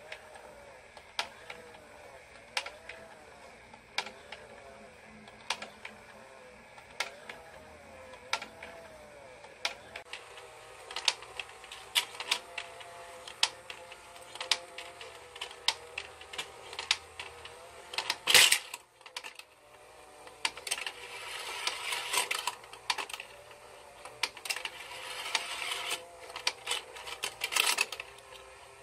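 Battery-powered plastic children's slide-track toy running: a faint motor whir with a sharp plastic click about every second and a half as the little figures move along the track. Later the clicking turns busier and irregular, with one loud plastic knock about two-thirds of the way in, as a cat paws at the track.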